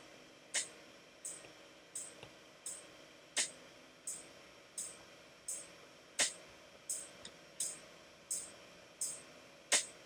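Soft, sharp clicks repeating very evenly, about one every 0.7 seconds, over a faint steady hiss.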